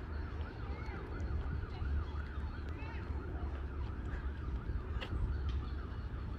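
Emergency vehicle siren in a fast yelp, its pitch swinging up and down about three times a second, over a steady low rumble.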